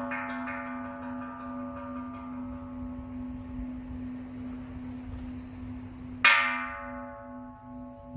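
A hanging bronze temple bell struck once with a wooden mallet about six seconds in: a sharp strike, then long ringing over a low, wavering hum. Before the strike, the ringing of the previous stroke fades away.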